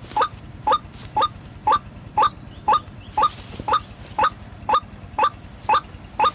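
White-breasted waterhen (ruak-ruak) call repeated in a steady, even series of short calls about two a second, the kind of lure call used to draw the bird to a trap. A brief hiss about three seconds in.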